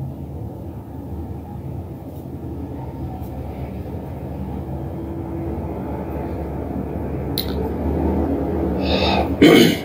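Steady low rumble that slowly grows louder, cut off above the low-middle range as if through a narrow-band call line. A short loud noise comes near the end.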